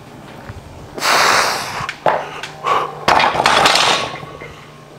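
A lifter breathing hard and forcefully through the mouth between front-squat reps with a loaded barbell: three loud, hissing breaths over about three seconds, with two short sharp knocks in between.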